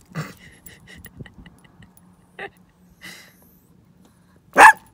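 Small dog giving one sharp, loud bark near the end, after a stretch of faint light jingling from its collar tags.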